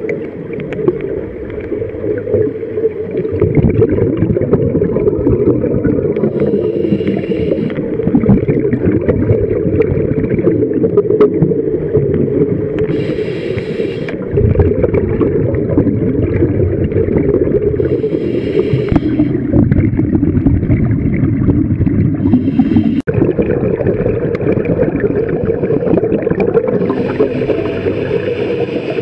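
Scuba diving heard underwater: a steady low rumble and gurgle of water and exhaled bubbles, broken about every five seconds by a short higher hiss as the diver breathes through the regulator.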